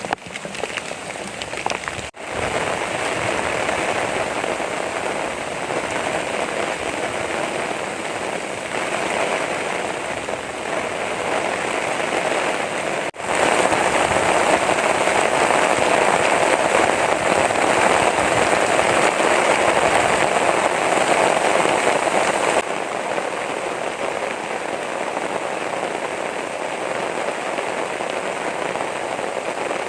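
Heavy rain falling steadily. The sound cuts out briefly twice; after the second break the rain is louder for about ten seconds, then settles back.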